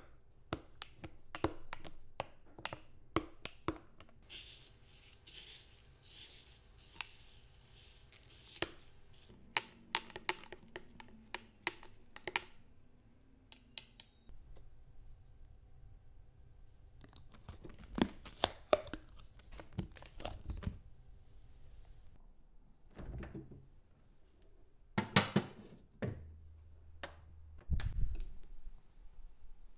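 Kitchen preparation sounds: a run of light clicks and knocks from utensils and containers, with a steady noisy rustle lasting about four seconds early in the run and a few heavier thunks later on.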